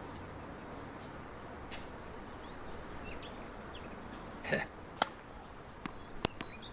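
Steady outdoor background hiss, with a few short sharp knocks in the second half.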